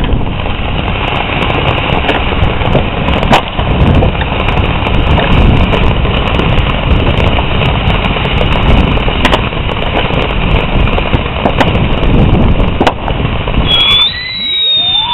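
A consumer firework fountain spraying with a steady loud hiss, broken by scattered sharp cracks. Near the end the hiss stops and shrill whistling fireworks start, their pitch gliding.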